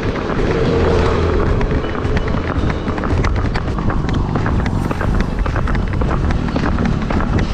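A ridden horse's hooves clopping on a tarmac road, with wind buffeting the microphone.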